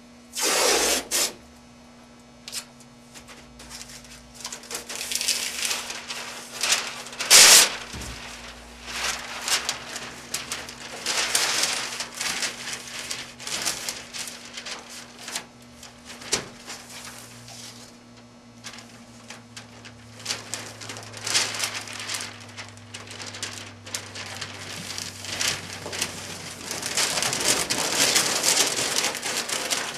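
Masking paper crinkling and rustling as it is handled and pressed down over a surface, with masking tape being pulled and torn; the loudest rips come about a second in and again at about seven and a half seconds.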